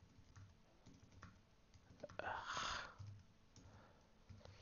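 Sparse, quiet keystrokes on a computer keyboard, with a brief louder rush of noise a little over two seconds in.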